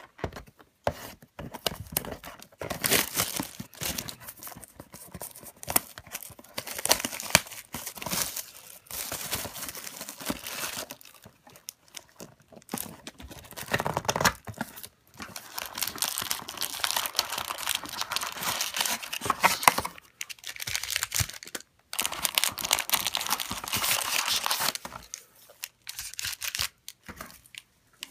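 Plastic wrapping of sealed football trading cards being torn open and crinkled, in bursts of tearing and rustling with short pauses between.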